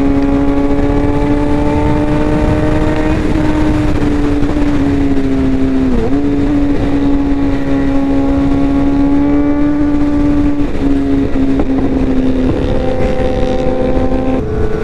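Suzuki GSX-R 750's inline-four engine holding a steady, high note at highway cruising speed, with a brief dip in pitch about six seconds in, over a heavy low rush of wind.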